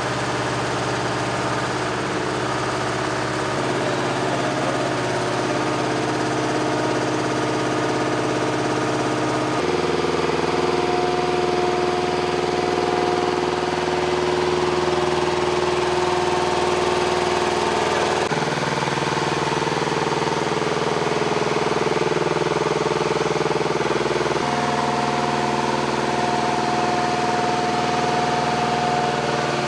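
Engine of an MHU-83D/E munitions lift truck running steadily. Its pitch and tone change abruptly a few times.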